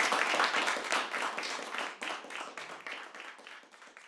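Applause from a small audience, fading away to a few scattered separate claps.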